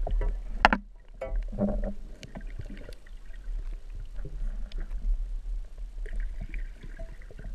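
Muffled underwater sound heard through a camera housing while snorkelling: a steady low rumble of water moving against the housing, with scattered clicks and two louder bursts in the first two seconds.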